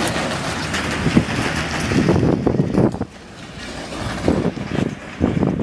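B-double semi-trailer truck passing close by, its engine and tyre noise filling the first three seconds, then dropping away suddenly. Wind buffets the microphone in irregular gusts after that.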